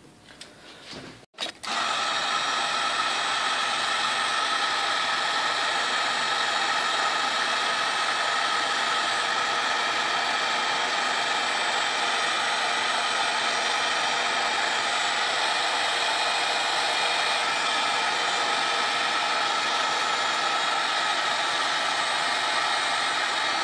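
Ace dual-temperature heat gun switched on about a second and a half in, then running steadily: a loud whooshing fan noise with a faint, steady motor whine.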